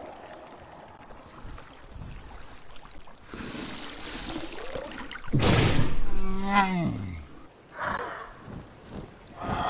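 Water pours and splashes from a large dinosaur's mouth as it drinks. Just past five seconds in comes a loud rush, then a long, low dinosaur call that slides down in pitch.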